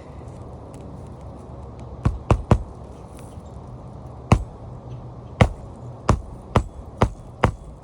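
Hammer blows nailing an asphalt roof shingle back into place: a few scattered strikes, then a steady run of about two strikes a second from the middle on, over a low steady rumble.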